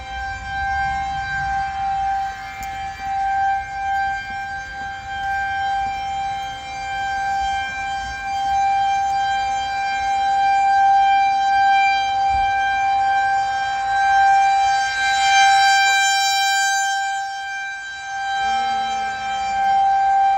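Federal Signal 2001-130 rotating electromechanical civil defense siren sounding a steady single-tone alert for a tornado warning. The pitch holds steady while the sound swells and fades as the horn sweeps around, loudest about three-quarters of the way through.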